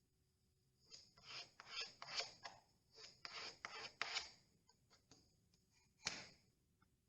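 Filling knife scraping and spreading two-part wood filler: a quick series of about a dozen short scraping strokes, a pause, then one more stroke about six seconds in.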